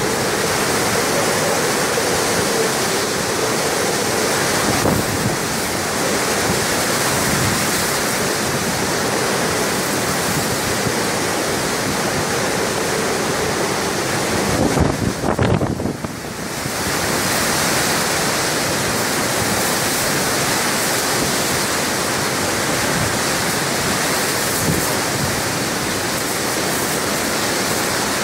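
Storm wind and heavy rain, a steady loud rushing through thrashing trees, with wind buffeting the microphone. It wavers and briefly drops about halfway through, then returns to the same steady level.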